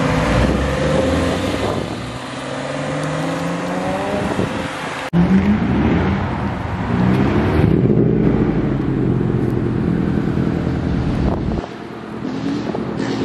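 Car engines accelerating hard: a Porsche 911's flat-six pulling away with revs climbing in steps through the gears, then, after an abrupt cut about five seconds in, another car revving up and accelerating, its engine loud and steady until it falls away near the end.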